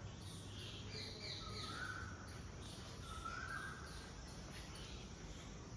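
A small bird calling faintly: a few short whistled notes, spaced about a second or more apart, over a low background hum.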